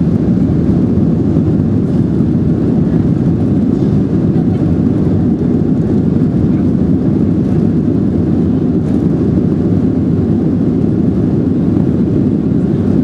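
Steady roar heard inside the cabin of a Boeing 767-300ER rolling out on the runway after touchdown with its spoilers raised. The sound is engine, airflow and wheel noise as the airliner slows.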